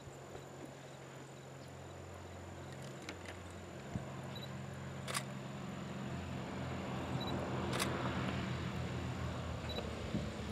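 Light twin-engine piston propeller plane on final approach, its engines' low drone growing steadily louder as it comes in low toward the runway.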